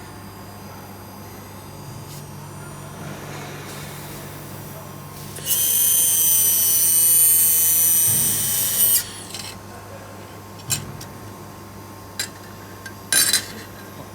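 Laser welder firing on 4 mm stainless steel: a steady, loud high-pitched hiss with a whine, lasting about three and a half seconds from about five seconds in, over a constant machine hum. A few sharp metal clinks follow near the end.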